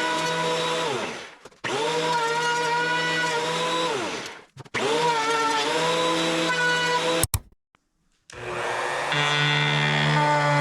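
An electric power tool's motor whining in runs of a few seconds, its pitch dropping as it spins down after each release. After a sudden break, a motor starts up again and settles into a steady whine near the end.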